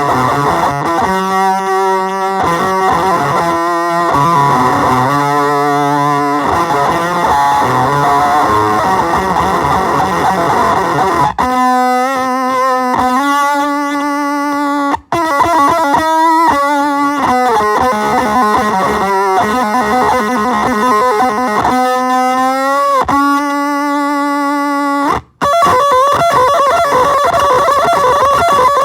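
Electric guitar played through an effects pedal: held notes and chords ring out one after another, a few with slight bends in pitch. The sound cuts out sharply for a moment twice, about halfway through and again near the end.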